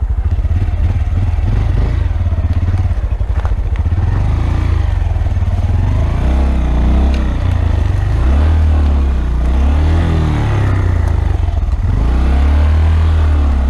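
2015 Honda Grom's 125 cc single-cylinder four-stroke engine, revving up and down repeatedly from about halfway through while the bike rattles and knocks over rough ground.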